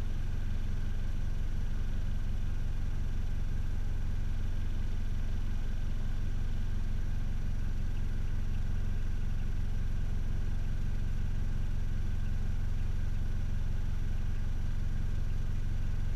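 Vehicle engine idling steadily, a constant low hum heard from inside the car's cabin.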